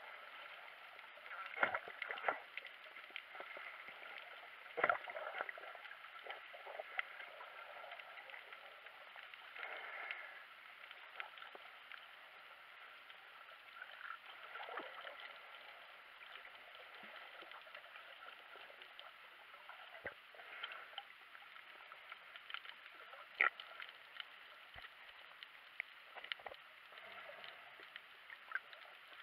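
Muffled underwater ambience picked up by a submerged camera: a steady watery hiss with scattered sharp clicks and pops, the loudest a couple of seconds in, about five seconds in, and again past the middle.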